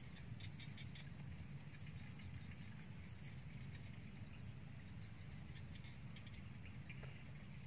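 Faint outdoor ambience: a steady low rumble under four short, high, falling bird chirps about two seconds apart.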